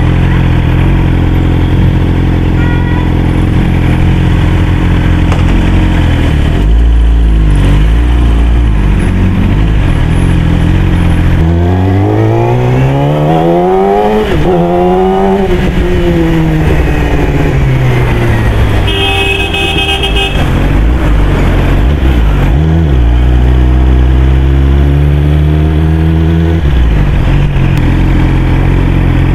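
Yamaha R6 inline-four engine running under the rider, its pitch climbing as it accelerates about halfway through, dropping away, then climbing again near the end. A horn sounds once for about a second and a half, a little after the middle.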